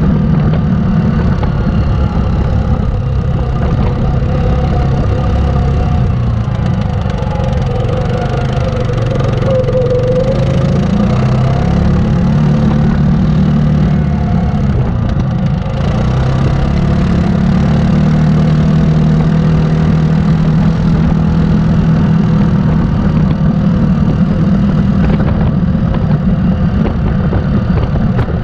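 Yamaha Grizzly 700 ATV's single-cylinder four-stroke engine running steadily while riding along a trail, its pitch rising and falling a little with the throttle.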